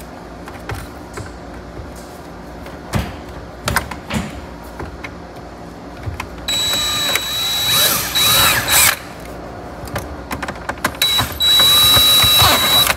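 Cordless drill running in two bursts of about two seconds each, with a steady high whine, drilling pilot holes for the mounting screws. Before the first burst there are light clicks and knocks as the drill is handled.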